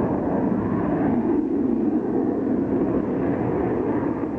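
Eurofighter Typhoon jet and Spitfire flying together in formation, a steady engine noise with no breaks.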